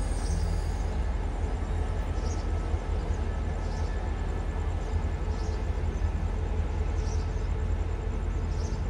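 SRT CSR-built diesel-electric locomotive running with a steady low rumble as it moves slowly at low speed, with faint high ticks now and then.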